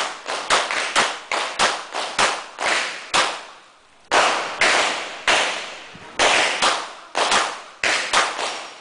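Glock pistol firing rapid strings of shots, about three a second, each crack with a short echoing tail. There is a pause of under a second a little over three seconds in, then firing resumes.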